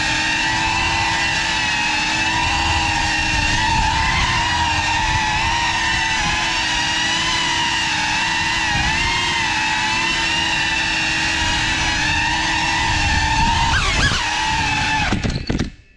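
GEPRC Cinelog35 cinewhoop drone's brushless motors and propellers whining steadily, the pitch wavering with the throttle. Near the end the whine bends and glides, then cuts out almost completely as the drone crashes to the floor.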